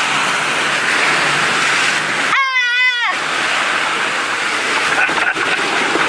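River water rushing and splashing against the sides of a vehicle as it fords a river, heard from inside the cabin. About two and a half seconds in, a short, high, wavering voice cry.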